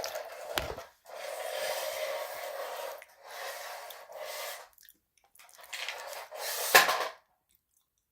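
Close-miked eating sounds: several stretches of wet chewing and crunching, with a sharp click just before 7 seconds in.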